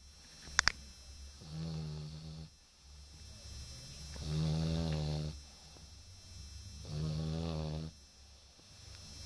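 Slow, regular snoring: three long snores, each about a second long, roughly every two and a half seconds. Two sharp clicks about half a second in.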